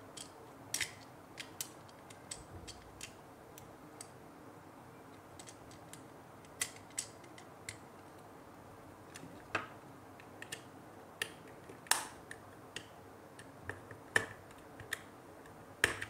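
Irregular light clicks and taps of a small plastic bed switch's housing being handled and fitted back together, with a sharper click about midway and another near the end.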